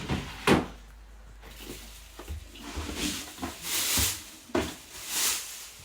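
Handling a storage cabinet and unwrapping its packaging: a sharp knock about half a second in, a few lighter taps, then two rustling, crinkling swishes of plastic wrapping near the end.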